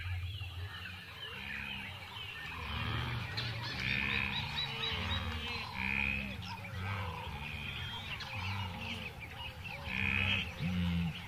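A recorded wildlife ambience: a layered chorus of animal calls, with low croaking calls repeating about once or twice a second under higher bird chirps and whistles, louder bursts about four, six and ten seconds in.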